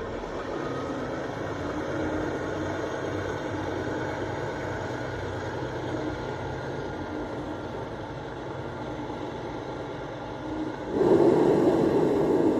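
Kenworth T680 semi truck's diesel engine running steadily as the tractor-trailer manoeuvres slowly across the yard. About eleven seconds in, a sudden, louder steady rushing noise comes in and holds.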